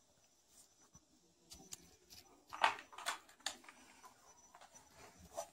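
A few faint, short clicks and soft rustles at irregular moments: a couple about a second and a half in, a cluster between two and a half and three and a half seconds, and one more just before the end.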